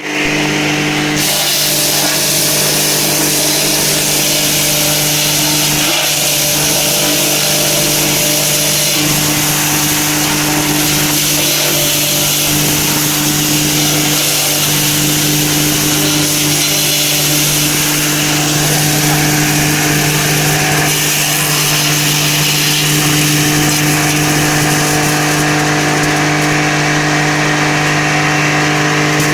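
Wood chipper running steadily and chipping branches, a constant motor hum under a loud grinding hiss that comes in about a second in.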